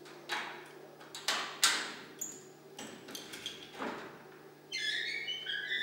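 Key turning in the lock of a metal kennel door, with several sharp metallic clicks and rattles of the latch and wire-mesh door. Music starts near the end.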